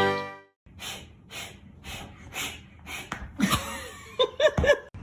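Rhythmic breathy huffs, about two a second, then a few short squeaky calls that rise and fall near the end.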